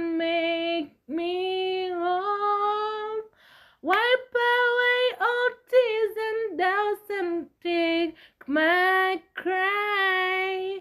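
A high female voice singing a slow hymn unaccompanied, holding long notes in phrases separated by short breaths, the last phrase ending just at the close.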